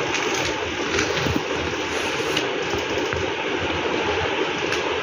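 A steady rushing noise, with a few faint light ticks of a paper sheet being creased and pressed flat by hand.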